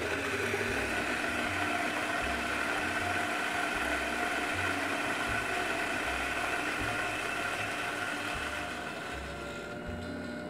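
Electric burr coffee grinder switched on and running steadily, grinding coffee fine for espresso: a high, steady whine over a grinding hiss that starts abruptly and eases off slightly near the end.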